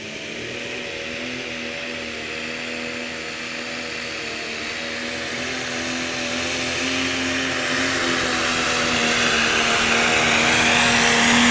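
Pro Stock pulling tractor's turbocharged diesel engine running flat out at a steady, unchanging pitch under full load as it drags the weight-transfer sled. It gets steadily louder, with a rushing noise building up underneath toward the end.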